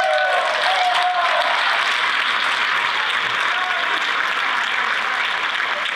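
Audience applauding steadily, with a voice calling out over the first second or so.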